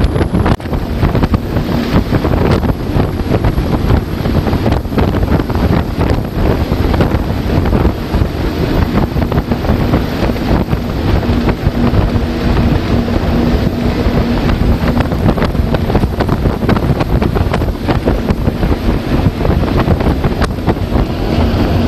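Wind buffeting the phone's microphone on a small boat running at speed, with water rushing past the hull and a faint steady engine hum underneath.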